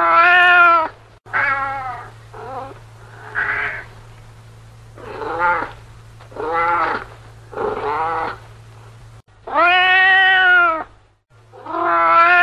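Domestic cat meowing, a recorded sound effect: about nine meows of varying length with gaps between them, the last two long and drawn out.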